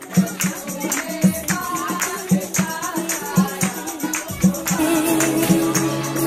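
Group of women singing a mehndi folk song in chorus, with a tambourine jingling and a dholak drum beating a steady rhythm, and hands clapping along.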